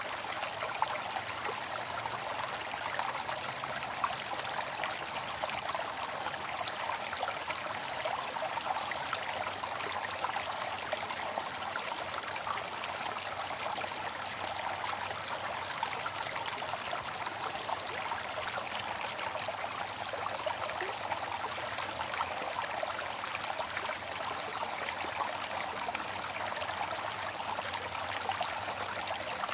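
Water fountain running steadily: water splashing and trickling into a basin in a dense, even patter.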